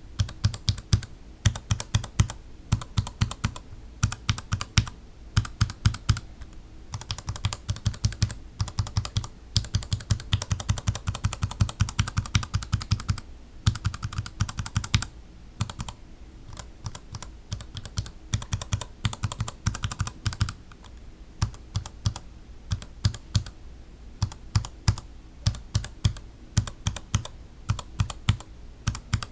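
Gateron Yellow linear mechanical keyboard switches being pressed and bottomed out over and over, giving sharp clacks in quick runs with short breaks between them, as the milky and black-bottom housings are compared by ear.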